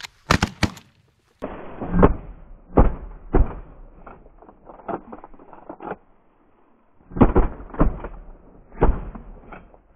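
Volley of shotgun blasts from several duck hunters: a quick run of shots in the first second, a brief gap, then about a dozen more spaced irregularly over the following seconds. The later shots sound duller than the first.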